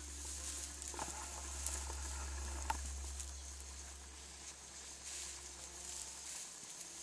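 Night insects chirring in a steady high-pitched haze over a low steady rumble, with a few faint clicks and rustles.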